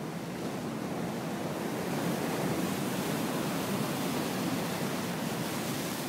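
Rough storm-surge sea: waves breaking and churning white against rocks and a seawall in a continuous rush of surf. It builds over the first couple of seconds and stays strong.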